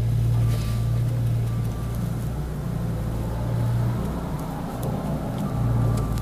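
Mustang 2054 skid steer loader's diesel engine running steadily under work, easing off for a moment about two-thirds of the way through, then picking back up, with a few light clicks.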